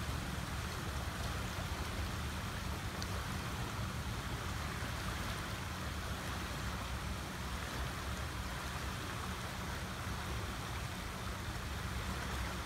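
Steady rushing of fast-flowing floodwater in an overflowing creek, with a low rumble under it.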